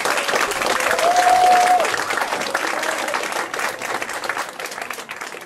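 Audience applauding with dense clapping. One voice cheers in a short held call about a second in, and the clapping thins and fades near the end.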